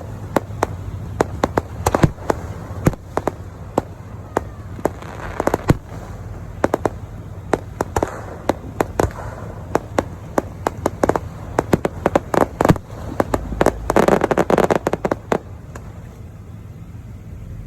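Fireworks display: a steady run of sharp bangs and pops with short echoing tails, thickening into a dense cluster of bangs about fourteen seconds in.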